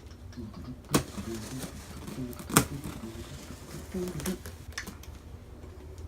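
Cardboard packaging of a 3D printer kit being handled and opened: two sharp knocks about a second and two and a half seconds in, with lighter clicks and rustling between.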